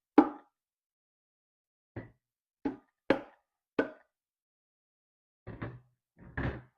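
Sharp knocks, about five separate hits in the first four seconds, as the motorcycle's exhaust header pipe sections are knocked and tapped together into place, followed by a couple of duller, longer sounds near the end.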